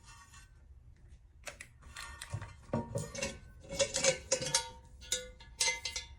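Cast-iron Dutch oven and its lid being handled, giving a run of irregular metal clanks with a short ringing tone, starting about a second and a half in and loudest near the middle.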